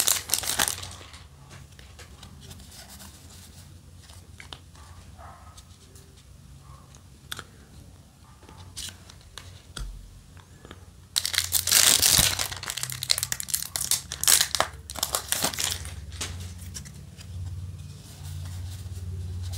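Foil Yu-Gi-Oh! booster pack wrapper crinkling as it is torn open, then quieter handling of the cards with small clicks, and a second loud spell of foil crinkling about eleven seconds in.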